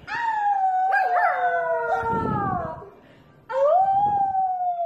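Puppy howling: two long drawn-out howls, each sliding slowly down in pitch. The first lasts about two and a half seconds, and the second starts about three and a half seconds in.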